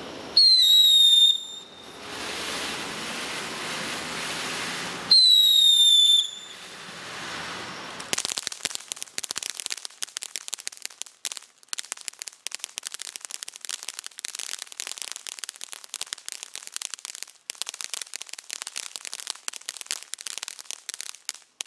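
Black Cat Cuckoo/Killer Bees fountain firework: two loud whistles, each about a second long and falling slightly in pitch, about five seconds apart, with a hiss between them. From about eight seconds in, a long run of dense, rapid crackling that stops just before the end.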